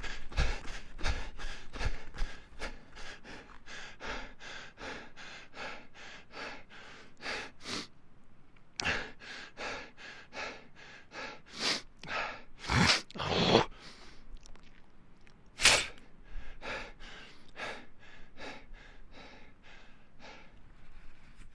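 A person breathing hard from running: quick, even panting at about two to three breaths a second. The panting stops briefly about a third of the way in, gives way to a few louder gasps, then settles back into a steady rhythm.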